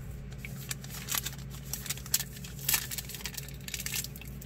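Trading cards and a foil card-pack wrapper being handled: irregular crinkling and rustling with scattered small clicks, over a steady low hum.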